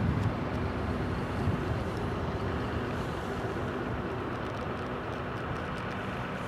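Electric train crossing a high stone railway viaduct overhead: a steady running rumble that slowly fades as the train moves away.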